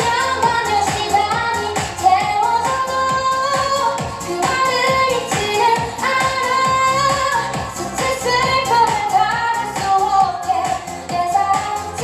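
Asian pop song with a singer's voice carrying the melody over a steady dance beat.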